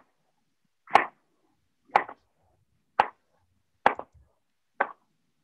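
A kitchen knife chopping through produce onto a small cutting board: six short, evenly spaced strokes about one a second, with dead silence between them.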